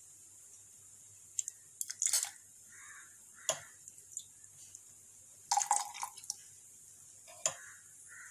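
Steel spoon clinking sharply against a glass bowl and a drinking glass as a milky drink is spooned from one into the other, with the liquid dripping and splashing into the glass. A handful of separate clinks, a second or two apart.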